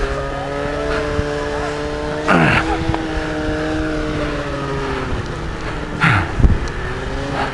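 Snowmobile engine running at steady revs, its pitch drifting slightly up and down. Two short bursts of rushing noise come through, and a sharp loud knock about six seconds in.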